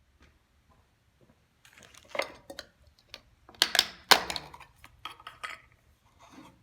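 Dishes, pots and utensils clinking and knocking as they are handled: a string of sharp clatters, the loudest about four seconds in.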